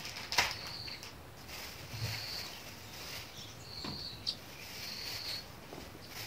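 Groceries being unpacked onto a stone kitchen counter: light knocks as boxes are set down and packaging is handled, the sharpest about half a second in. Short high chirps recur every second or two through it.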